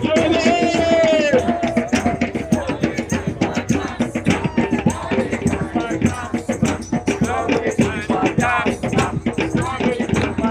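Group of people singing and chanting over fast drumming and shaken percussion, the beat running without a break.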